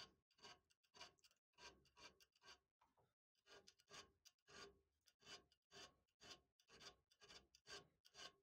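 Faint rhythmic scraping of a thin steel file or blade stroked back and forth over the threads of a small steel screw, about two strokes a second.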